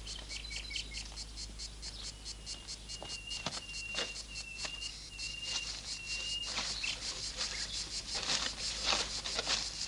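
Insects chirping in a fast, even pulse, about six times a second. A thin, high whistling note comes and goes through the middle, and there are a few light snaps.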